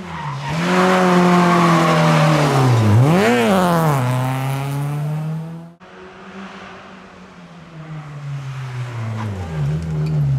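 Rally car engines on a forest stage, in two separate passes. The first is loud and held at high revs; about three seconds in its pitch drops, then shoots up and falls back, a throttle blip on a downshift. After a sudden cut, a Renault Clio II rally car's engine grows louder as it approaches, with revs dipping and jumping again near the end as it changes down for the bend.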